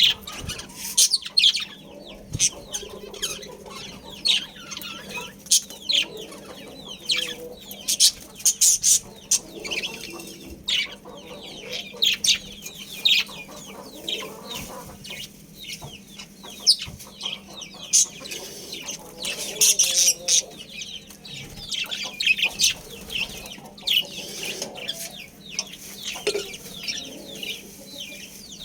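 Budgerigars chirping and chattering continuously, a rapid stream of short high chirps with a few louder bursts. A faint steady hum runs underneath.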